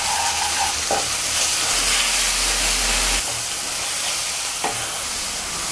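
Onion-tomato masala with freshly added spice powders frying in hot oil in a kadai, sizzling steadily as it is stirred, with a couple of light spatula knocks against the pan.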